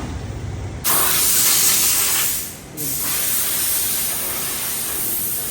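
Pressurised spray hissing in two long bursts: the first starts about a second in and cuts off briefly after a second and a half, then the second runs on steadily.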